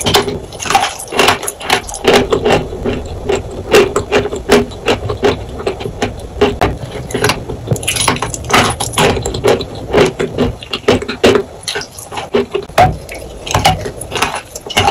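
Close-miked crunching and chewing of a dry sawn chalk block coated in clay paste, a dense, irregular crackle of many small cracks each second as the chalk breaks between the teeth.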